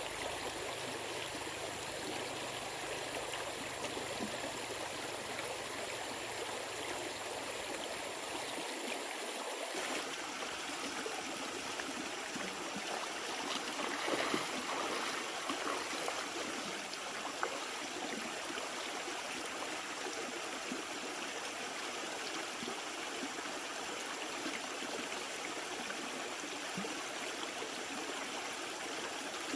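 Stream water running steadily, with a few small clicks and a brief louder swell near the middle.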